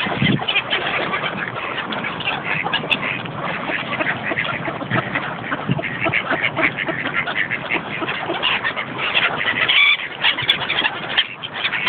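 A crowd of feeding waterbirds calling over one another in a dense, unbroken chatter of short calls, with a brief lull near the end.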